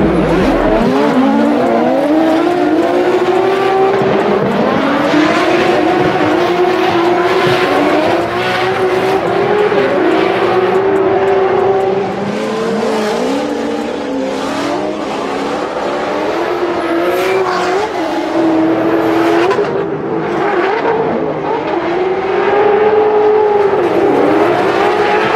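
Drift car engines at high revs during a tandem drift, the engine note rising and falling over and over as the throttle is worked, with the hiss and squeal of sliding, smoking tyres beneath it.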